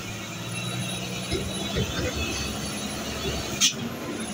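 Loaded Hino truck's diesel engine running steadily at low revs as the truck crawls forward, with one sharp click about three and a half seconds in.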